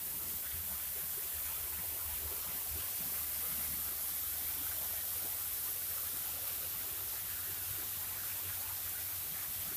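Small river flowing with a steady, even rush of water.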